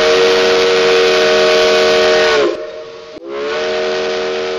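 Steam locomotive chime whistle blowing two long blasts over a steady hiss of steam. The first blast dips in pitch as it cuts off about two and a half seconds in, and the second starts a moment later and slowly fades.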